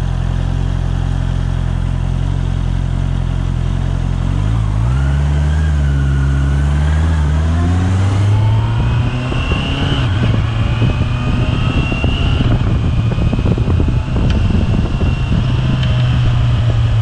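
Honda CBR650R E-Clutch's inline-four engine running at low revs, then revving up as the bike pulls away about four seconds in. From about eight seconds, rushing wind noise on the microphone joins the engine as the bike gathers speed.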